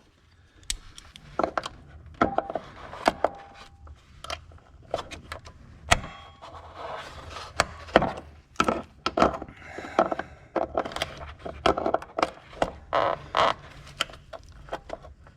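Locking pliers (vise grips) being clamped onto a broken battery hold-down bolt stub and slipping off it, giving many irregular sharp metallic clicks and knocks.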